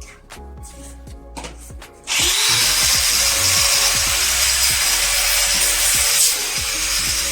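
Angle grinder fitted with a sanding pad starts about two seconds in and runs steadily, sanding pallet pine wood, over background music with a beat.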